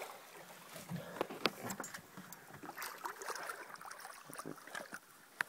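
Scattered light knocks, taps and clatter over a low background hiss, from handling a landed shark on a fishing boat's deck; the sharpest knocks come about a second and a half in.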